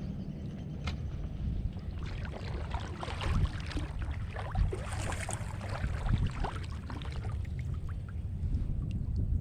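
Water splashing and lapping around a kayak on a moving river, in irregular small splashes over a steady low rumble.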